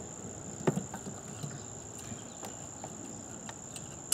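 Scattered light clicks and knocks of a hand working around parts in a car's engine bay, the sharpest about two-thirds of a second in and another at the very end, over a steady high-pitched whine.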